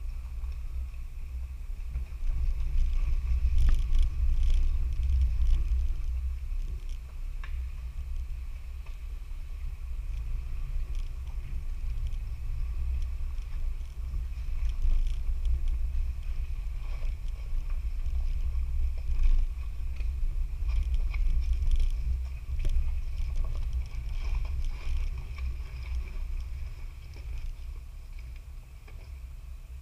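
Off-road 4x4 driving slowly over a rough trail: a low engine and drivetrain rumble that swells and eases, with scattered knocks and rattles.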